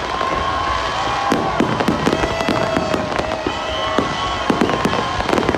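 A fireworks display: a dense, rapid run of bangs and crackling pops from many shells bursting close together, with long whistling tones held over them.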